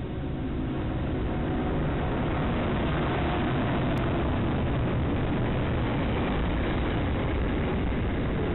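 Diesel-electric freight locomotives passing close by, engines running under power with the rumble of the train on the rails. The noise builds over the first couple of seconds as the lead locomotive arrives, then holds steady as the following locomotive and container wagons roll past.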